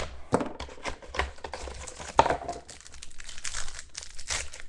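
Plastic wrapper of a 2013 Absolute Football trading-card pack being torn open and peeled off the cards, crinkling in a run of irregular crackles, with sharper snaps at the start and about two seconds in.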